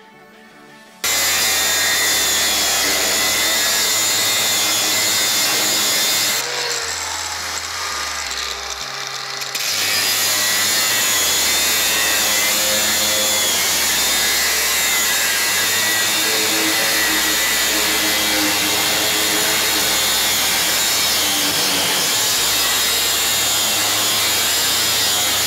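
Angle grinder with a cut-off disc cutting through the steel wall of an air-compressor receiver tank: a loud, steady grinding whine that starts suddenly about a second in. It eases off and loses its high edge for about three seconds a quarter of the way through, then carries on at full strength.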